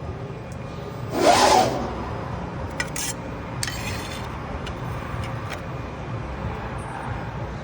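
CNC press brake working sheet metal: a loud rush of noise lasting about half a second, then a few sharp clicks and a brief rasping scrape, over a steady low machine hum.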